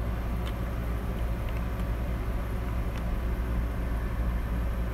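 Steady low background hum, with a few faint light clicks.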